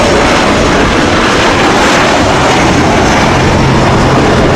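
Boeing 737 jet airliner coming in to land, its engines making a loud, steady roar. A low hum joins in a little over two seconds in.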